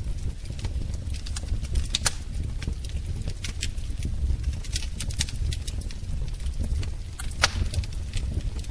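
Wood fire burning in a fireplace: a low steady rumble of flames with irregular crackles and sharp pops, one louder pop near the end.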